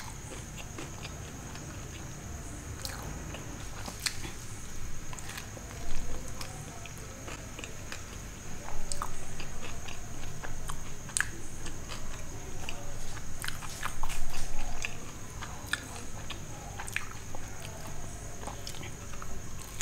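Close-miked biting and chewing of a cheesy macaroni pizza slice: soft, wet mouth smacks and clicks in an irregular stream, louder around a third of the way in and again past the middle.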